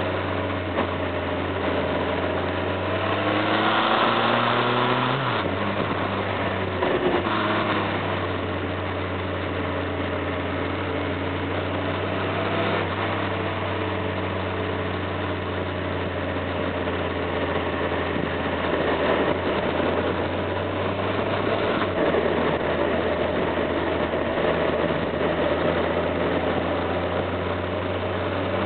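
Motorcycle engine under way on the road. Its pitch rises as it accelerates over the first few seconds, drops suddenly about five seconds in, then holds fairly steady, with a constant rushing wind and road noise.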